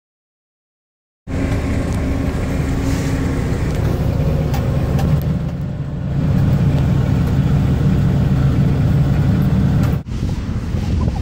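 Silence for about a second, then a self-propelled Rogator crop sprayer's engine running steadily under load, heard from inside the cab while the boom sprays. About ten seconds in the sound breaks off sharply and gives way to a lighter, windier noise.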